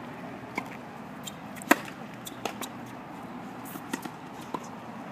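Tennis ball struck by a racket on a serve: one sharp pock, the loudest, about a second and a half in, with fainter pocks of the ball bouncing and being hit before and after it.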